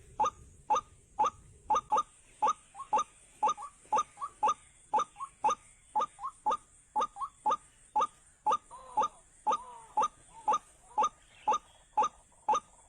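White-breasted waterhen calling: short, sharp call notes repeated at about two a second, some in quick pairs, with a longer warbling call about nine seconds in.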